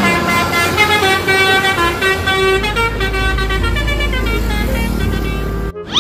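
Bus 'telolet' horn playing a quick multi-note tune, the pitch stepping from note to note every fraction of a second. A low rumble joins under it in the second half, and the horn cuts off abruptly near the end.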